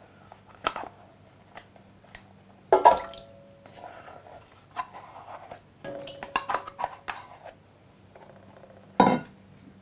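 Spoon and bowl knocking and scraping against a stainless-steel mixer bowl as dough is scraped in: two sharp metallic knocks with a short ring, about three seconds in and near the end, and a run of lighter clinks and scrapes in between.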